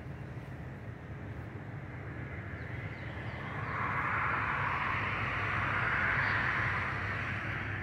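Road traffic: a steady low rumble, with one passing vehicle's tyre hiss swelling about halfway through and fading near the end.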